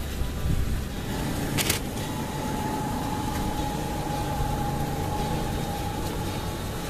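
Road traffic: a motor vehicle running, with a steady low rumble and a steady hum from about a second in, and a single sharp click in the middle.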